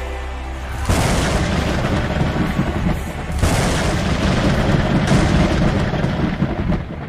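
Thunderclap sound effects over a soft music bed. A heavy rumbling crash breaks in about a second in, and a second one swells about three and a half seconds in, with the rumble carrying on almost to the end.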